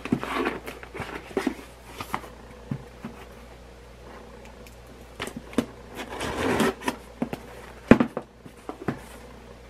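Scissors slitting the tape along the seam of a cardboard box, with scattered clicks and scraping as the box is handled. A longer scraping stretch comes about two-thirds in, and a sharp click near the end.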